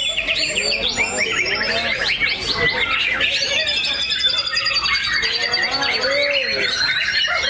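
Several white-rumped shamas (murai batu) singing at once, a dense tangle of overlapping whistles, rapid trills and chattering phrases with no break.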